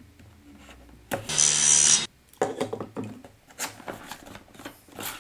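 A tear strip is peeled off a cardboard product box in one rip lasting about a second. The box is then handled, scraping and tapping against a wooden tabletop.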